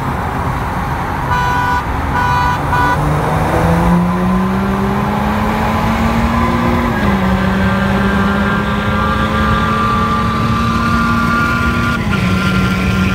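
A tuned 3.0-litre six-cylinder diesel car accelerating hard, heard from inside the cabin. There are three short horn toots one to three seconds in. Then the engine note climbs steadily, drops at an upshift about seven seconds in, climbs again and drops at another upshift near the end.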